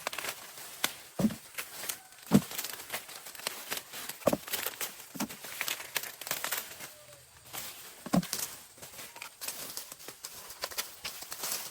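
Dry plant leaves and husks crinkling and rustling as they are handled, with several dull thumps scattered through.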